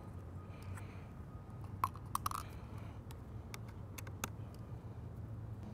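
Light clicks and scrapes of a small Phillips screwdriver turning out the screen-bezel screws of a laptop, sharpest about two seconds in, over a steady low hum.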